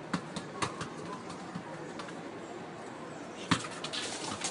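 Football knocks on a tiled balcony: a few sharp thuds of the ball being kicked and bouncing, the loudest about three and a half seconds in and a quick run of smaller ones near the end.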